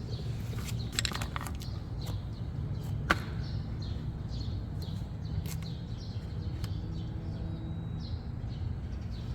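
Outdoor background: a steady low rumble with small birds chirping and a few sharp clicks, the loudest click about three seconds in.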